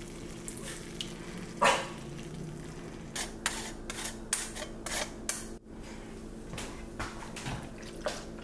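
Cooking in a frying pan: tomato sauce from a jar lands on browned beef with one loud splat about two seconds in, then a wedge of hard cheese is grated over the pasta in quick scraping strokes, about three a second. Near the end a wooden spoon scrapes and scoops pasta from the pan into a bowl. A steady low hum sits underneath.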